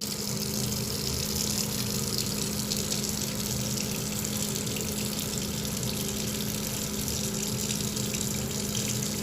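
Steady running-water noise like a tap running, with a low steady hum underneath and no change throughout.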